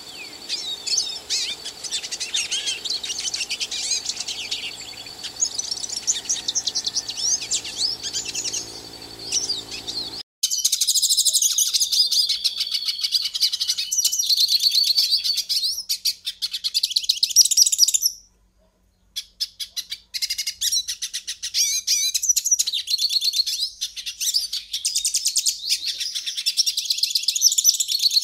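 A pintassilgo finch singing a long, rapid song of high chirps and trills. The recording changes abruptly about a third of the way in, and the song stops for about a second about two-thirds of the way through, then goes on.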